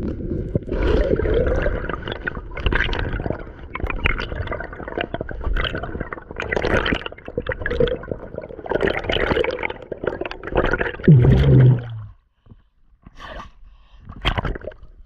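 Water sloshing and gurgling close to the microphone in uneven surges every second or two, dying down about twelve seconds in.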